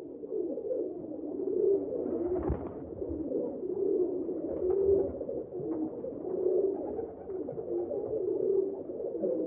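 Birds cooing continuously, low warbling coos repeating and overlapping.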